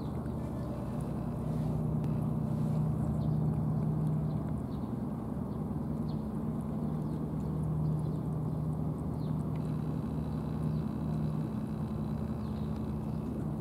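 A motor running steadily with a low, even hum, and faint clicks of cats chewing and eating from plastic trays.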